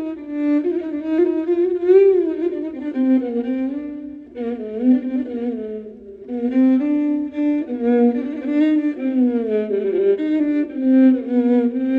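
Solo violin improvising a taksim in makam Hicaz: a single bowed melodic line low on the instrument, with pitch slides between notes. Phrases break off briefly about four and six seconds in.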